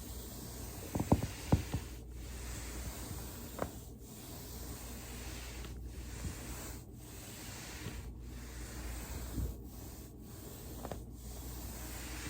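Joint cracks during foam rolling: a quick run of four or five sharp pops between one and two seconds in, and one softer pop a few seconds later, over a steady hiss.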